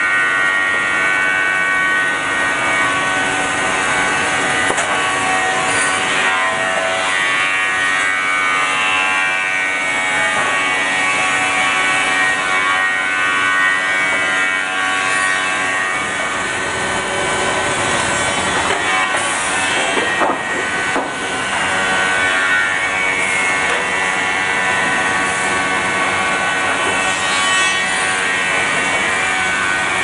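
TS550 automated timber sawing and branding line running: steady machinery noise with a saw cutting wood.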